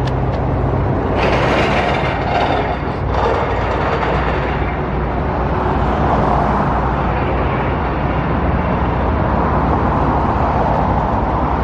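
Steady motor-vehicle and road noise, with a louder hissing swell about a second in, like a vehicle passing close by.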